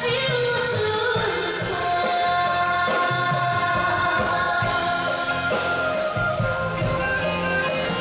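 A female vocalist singing a Chinese pop song live through a microphone, backed by a live band with a drum kit keeping a steady beat.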